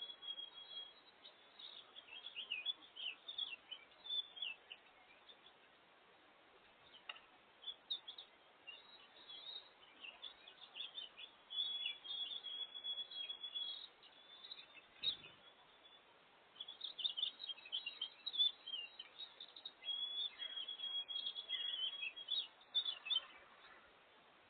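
Small songbirds chirping and twittering in repeated bouts, with a few short steady trills mixed in. There is a soft low bump about fifteen seconds in.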